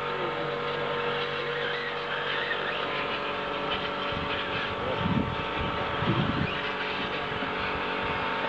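Several 1/10-scale electric 2WD RC buggies racing on a dirt track: a steady whine of their motors and gears over a hiss, with low thumps about five and six seconds in.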